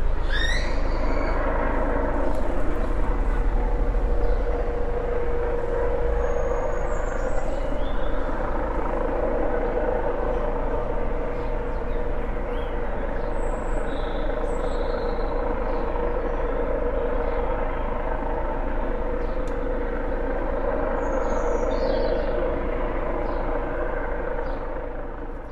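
Police helicopter circling overhead: a steady drone of rotor and engine with a constant hum under it, fading out near the end.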